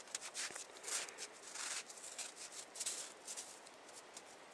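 Faint, irregular rustling with light clicks and ticks, thinning out near the end.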